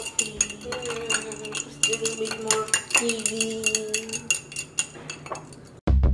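A stirrer clinking over and over against a tall glass as iced coffee is stirred. Music with a drum beat cuts in at the very end.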